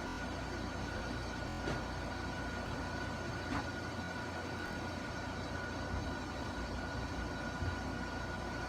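Steady low rumble and hiss with a thin high-pitched whine held on one note, and a faint click about a second and a half in.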